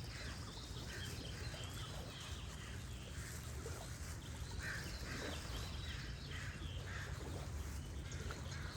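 Goose honking in repeated short calls, bunched in the middle of the clip, over faint songbird chirps and a steady low wash of gentle running water.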